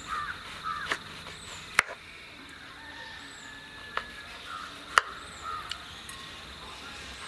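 A kitchen knife cutting through a large citron (narthangai) knocks sharply on a wooden cutting board several times. The two loudest knocks come about two and five seconds in.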